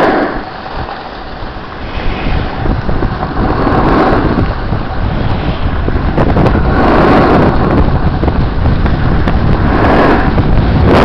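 Wind rushing over the microphone while riding downhill on snow, with a scraping hiss of edges on snow that swells every three to four seconds as turns are carved.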